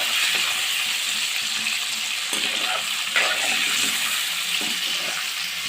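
Small whole new potatoes sizzling steadily as they fry in hot oil, with a couple of faint knocks about two and three seconds in.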